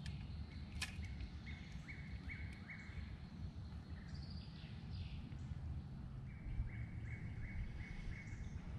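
A bird singing two phrases of five or six quick repeated notes, about three a second, over a steady low rumble, with a single sharp click about a second in.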